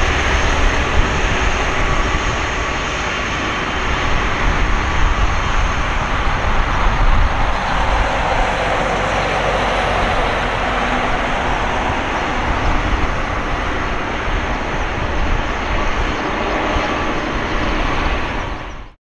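Boeing 767-300ER twin turbofan jet engines at taxi thrust: a steady jet roar with a faint whine, swelling a little around the middle as the airliner turns away. The sound cuts off abruptly just before the end.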